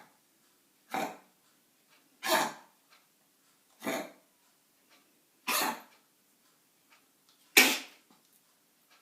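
Dog coughing in a series of five short, harsh coughs about one and a half seconds apart, the last one loudest.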